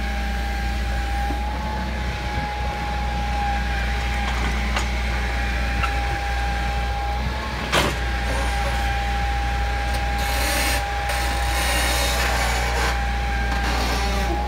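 Hitachi crawler excavator's diesel engine running steadily under load as the bucket digs and lifts soil, with a steady high whine over it. A single sharp knock comes about eight seconds in, and a hiss rises for a few seconds in the second half.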